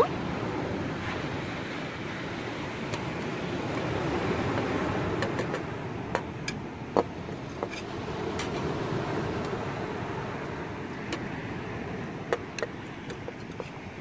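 Sea surf washing steadily, with a few scattered sharp clinks of a metal spatula against an aluminium pot and a china plate as pieces of cooked tripe are lifted out.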